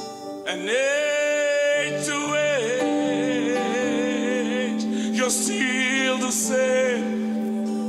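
Male gospel singer singing a held, wavering melody line over sustained backing chords, entering about half a second in.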